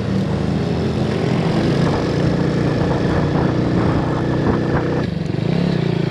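125 cc motorcycle engine running steadily while riding, heard from on board the bike with wind noise. The engine note changes abruptly about five seconds in.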